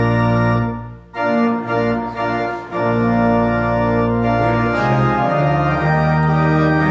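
An organ plays a hymn in long held chords. The sound drops out briefly about a second in, then the next chord comes in.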